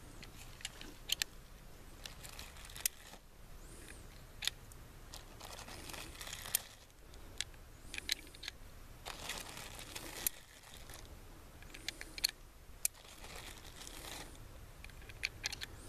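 Cartridges being loaded one at a time through the loading gate of a Ruger Super Blackhawk .44 Magnum single-action revolver: scattered sharp metallic clicks as rounds drop into the chambers and the cylinder is turned. A plastic bag of cartridges crinkles in bursts as rounds are picked out of it.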